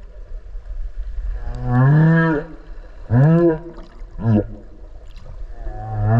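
Humpback whale song recorded underwater: a series of calls with many overtones, each rising and falling in pitch. A longer call comes about two seconds in, then one at about three seconds, a short one after four seconds, and another building up near the end, all over a steady low underwater rumble.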